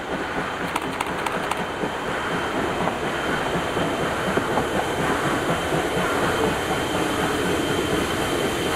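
Heritage passenger train rolling along the line: a steady rumble of wheels on rail, growing slightly louder, with a few clicks over the rail joints about a second in.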